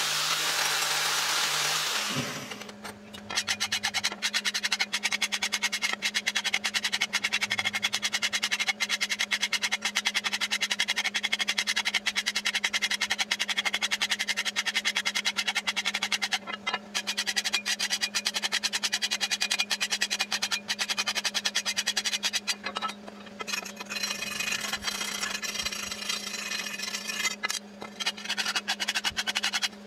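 An angle grinder's wire wheel brushing a rusted steel hoe blade, running for about two seconds and then stopping. After that comes a long run of rapid, sharp metal clicks from a hand tool worked against the blade in the vise, several a second with brief pauses, over a steady low hum.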